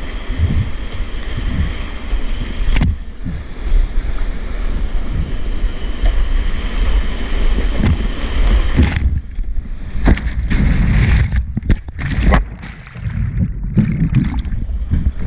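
Whitewater rapids rushing and splashing right around a kayak-mounted camera, with water hitting the microphone in low thuds. About nine seconds in the sound turns muffled and choppy as the kayak plunges into the drop and the camera goes in and out of the foam.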